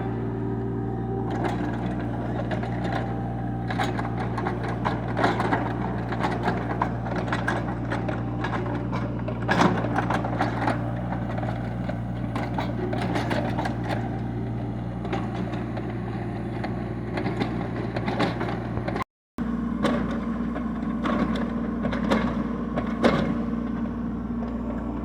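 Kubota mini excavator's diesel engine running steadily, with frequent clanks and scrapes of the bucket digging. The sound drops out for a moment about three quarters of the way through.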